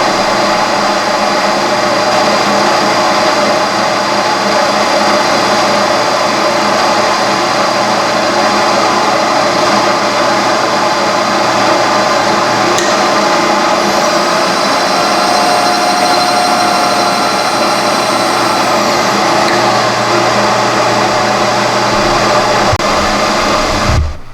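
Milling machine running a 1-inch face mill with inserts, cutting across the top of a vise anvil: a steady, loud drone with several held tones that drops away just before the end.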